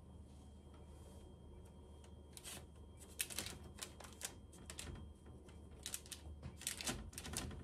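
Faint crinkling and rustling of baking parchment as hands shift dough rolls about on a lined baking tray. It comes as a run of light, irregular clicks starting about two seconds in.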